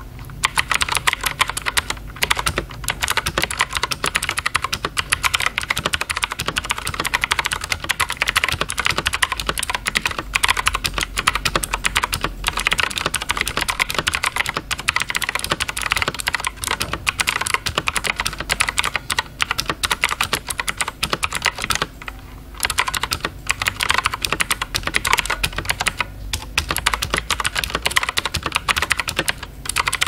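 AKKO MX300 TKL mechanical keyboard with Akko's own blue clicky switches being typed on continuously, close to the microphone: a fast, dense run of clicky keystrokes with a few short pauses. The sound is not too loud for blue switches.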